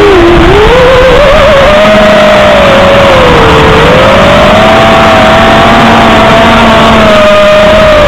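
A 5-inch FPV freestyle quadcopter's motors and propellers whining. The pitch slides down and back up twice as the throttle changes, then holds fairly steady.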